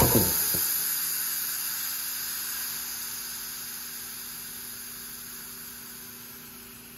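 Air compressor's motor and twin-cylinder pump shutting off as the pressure switch cuts out, spinning down within about half a second. This is followed by a hiss of air venting from the unloader valve that fades away steadily. The hiss dying out is the sign of the repaired check valve holding tank pressure.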